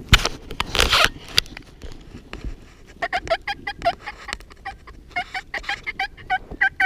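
Wild turkeys calling in quick runs of short yelping notes, about five or six a second, in three bouts starting a few seconds in. Loud close rustling of clothing and brush comes first.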